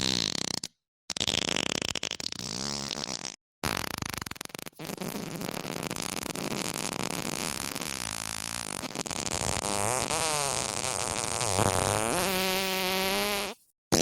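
A run of fart sound effects, each cut off by a brief dead-silent gap: a short one, one of about two seconds, another short one, then a long drawn-out one lasting about nine seconds. The long one wavers up and down in pitch and ends on a steadier tone.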